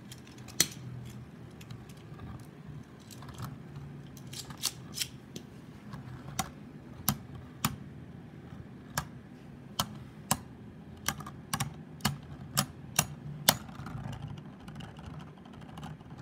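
Two Beyblade spinning tops circling each other in a plastic stadium, clacking together in sharp, irregular clicks. The clicks come more often, about every half second, in the second half, over a steady low hum.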